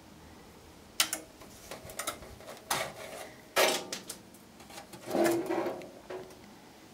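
Handling noise from a key telephone system's cabinet being shifted and tipped on a steel workbench: a series of irregular knocks and clatters, some with a short ring, the loudest about three and a half seconds in.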